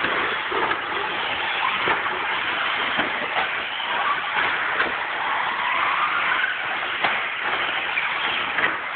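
Several radio-controlled 2WD short course trucks racing on a dirt track: a steady whir of electric motors and tyres on dirt, with one motor's whine rising and falling about five seconds in. Scattered short clicks and knocks run through it.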